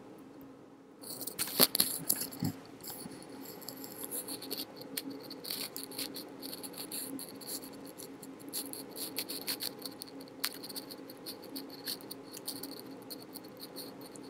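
Faint background hum and hiss with scattered small clicks and crackles, the sharpest click about a second and a half in.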